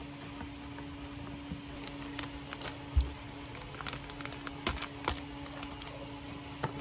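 Packaging being handled by hand: scattered crinkles of a plastic bag and light clicks and taps against a cardboard box, with one dull thump about three seconds in, over a faint steady hum.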